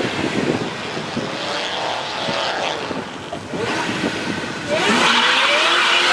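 Car engines revving unevenly at low speed for the first few seconds. About five seconds in, a Ford Mustang convertible's engine is revved hard and its rear tires break loose, starting a burnout: a sudden loud, steady tire squeal over the high-revving engine.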